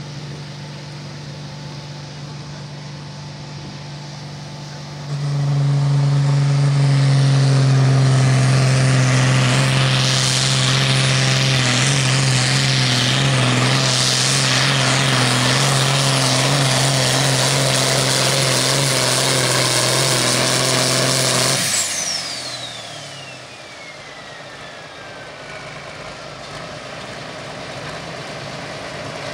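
Turbocharged diesel engine of a John Deere Pro Farm pulling tractor on a pull. It runs low at first, then about five seconds in jumps to full throttle and holds a loud, steady pitch for some sixteen seconds. The throttle is then cut, the turbo whistles down, falling in pitch, and the engine settles back to idle.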